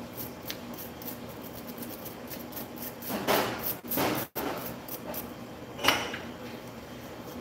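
Small brush scrubbing coffee grounds off the removed burr of a Eureka coffee grinder: faint scratchy brushing, with a couple of louder strokes about three to four seconds in and a sharp click about six seconds in.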